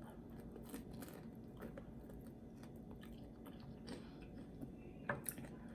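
A person chewing a bite of sauced chicken wing close to the microphone: faint wet mouth sounds and small clicks, with a couple of sharper clicks about five seconds in.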